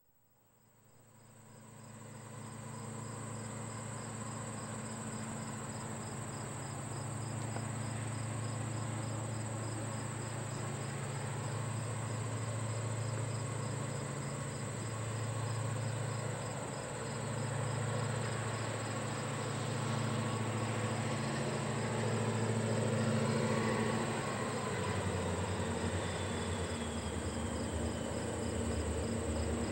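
Diesel locomotives approaching at a distance, their engines making a steady low drone that deepens and grows louder over the last few seconds as the train nears. Crickets chirp in an even pulse throughout. The sound fades in over the first couple of seconds.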